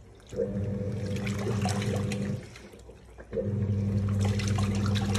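Washing machine running its wash cycle: the motor hums in pulses of about two seconds with a second's pause between, as the drum turns with water sloshing inside.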